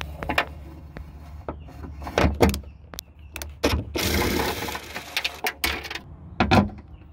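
Irregular metallic clicks and knocks from a socket wrench and extension working a bolt inside a hollow steel Jeep Grand Cherokee WJ door, with a longer burst of noise about four seconds in.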